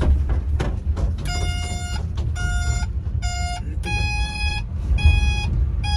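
Six short electronic beeps, about one a second, the last three a little higher in pitch than the first three, over the steady low rumble of an engine.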